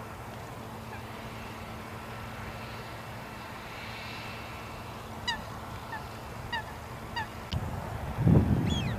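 Goose honking: five short calls, each falling in pitch, starting about halfway through, over a steady low hum. Near the end a loud low rumble comes in and drowns out the rest.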